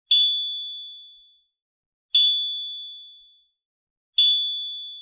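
A bright bell-like ding sound effect, struck three times about two seconds apart, each ring fading out over about a second: the notification-bell chime of an animated subscribe button.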